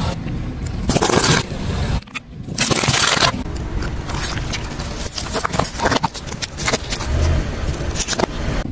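Car tyre rolling over fruit and small plastic slime pots on asphalt and crushing them: a run of crunches, cracks and crackles, with squelching as the pots burst. The sound drops out briefly about two seconds in, then comes back with a loud stretch of crackling.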